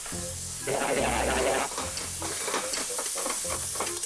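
Background music over meat sizzling in a hot pot, with a loud burst of sizzling about a second in that lasts about a second. After it the sizzling goes on more lightly, with short clicks of utensils on the pot.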